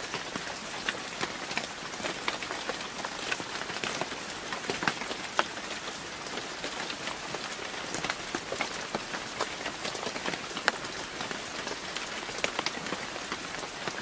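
Rain falling on a woodland floor of dead leaves: a steady hiss dotted with many small, irregular ticks of drops.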